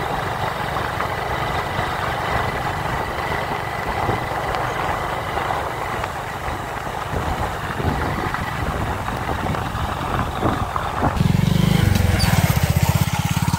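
Motorcycle engine running steadily while riding, with road and wind noise. About eleven seconds in, the engine sound turns louder and throbbing.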